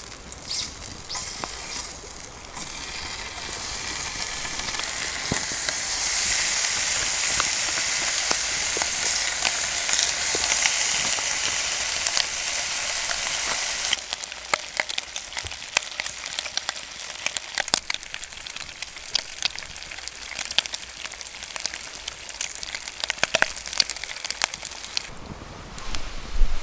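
Food frying in a hot pan over a campfire. The sizzle builds to a loud, steady hiss, drops suddenly about halfway through, and carries on quieter with scattered pops and crackles.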